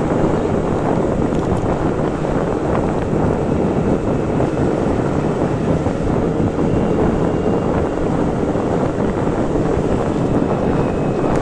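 Wind rushing over the microphone on a moving motorcycle, with the engine running steadily underneath as it rides along.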